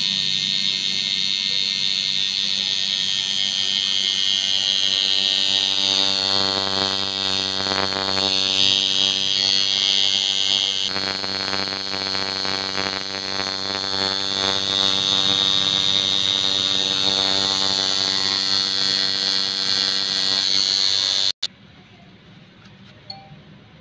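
Coil tattoo machine buzzing steadily while it inks a tattoo outline into the skin of a forearm. The buzz cuts off suddenly near the end.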